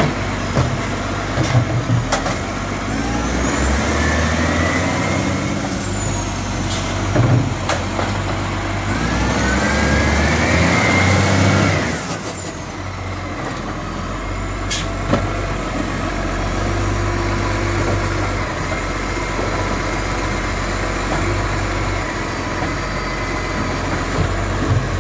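Side-loader garbage truck's diesel engine revving while its hydraulic arm lifts and tips wheelie bins. There are two rising whines from the arm's hydraulics and sharp knocks of bins against the hopper. About halfway through the revs drop and the engine runs lower and steadier.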